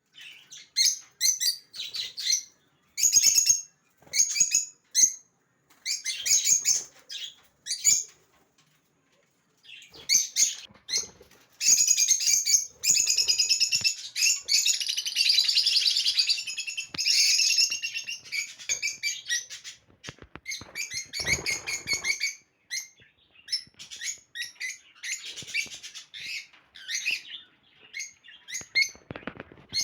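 African lovebirds chattering with shrill, high chirps in bursts, pausing briefly about nine seconds in and densest from about twelve to twenty seconds. There is a short rustle a little past twenty seconds.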